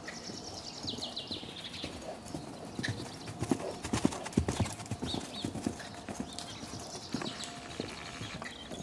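Hoofbeats of a grey five-year-old Lusitano horse cantering on a sand arena. They are loudest about three and a half to four and a half seconds in, as the horse passes close.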